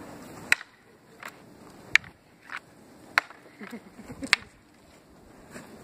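Wooden practice swords, carved from sticks, clacking together in sword sparring: about seven sharp wooden knocks at uneven intervals over four seconds, four of them loud.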